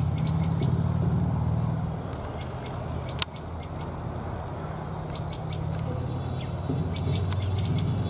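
Common tailorbird calling: quick runs of short, sharp, repeated notes, coming in several bursts over a steady low rumble. A single sharp click about three seconds in.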